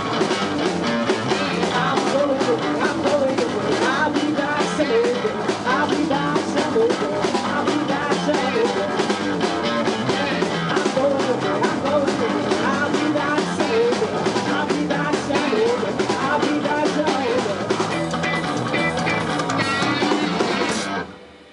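Rock band playing live on drums and guitar, the song stopping abruptly near the end.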